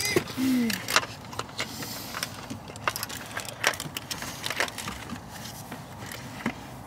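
Scattered light clicks and taps as a model rocket's plastic nose cone and its metal hardware are handled and pushed into the body tube.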